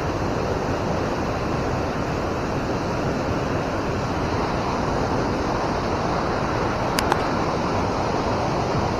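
Steady rush of river water pouring over a dam spillway, with two brief clicks about seven seconds in.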